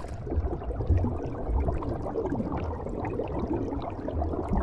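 Underwater sound effect: a muffled low rumble with bubbling and gurgling, no sharp or high sounds.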